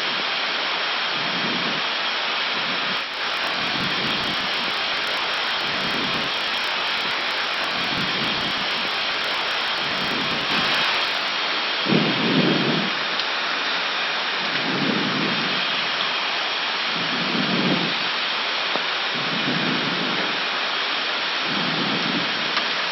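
Steady rushing cockpit noise of an Airbus A319 in descent, the airflow and air-conditioning hiss of the flight deck. In the second half a soft low pulse recurs about every two and a half seconds.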